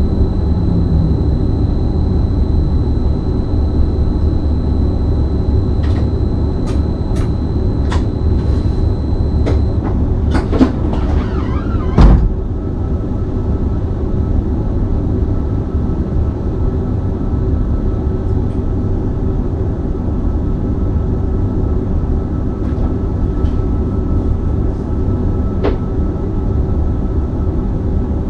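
BLS RABe 515 electric multiple unit coming to a stop and standing at a station, with a steady low hum and rumble throughout. At the start a low tone falls as it halts. A high steady tone and a series of clicks sound until about ten seconds in, then comes a single loud clunk about twelve seconds in.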